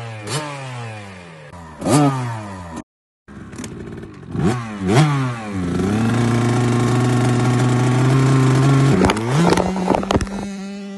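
Husqvarna youth dirt bike's two-stroke engine revved in quick blips of the throttle, broken by a short gap in the sound about three seconds in. It is then held at a steady high rev for about three seconds before dropping back to idle near the end, with a few more blips.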